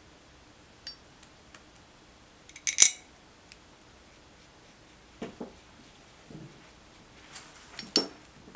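A watercolour paintbrush clinking and tapping against a ceramic palette and paint pans, with one sharp clink about three seconds in. Near the end the brush is rinsed in a small glass water jar, clinking against the glass.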